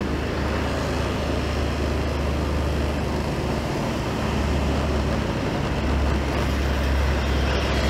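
Steady low engine rumble and road noise from a vehicle on the move.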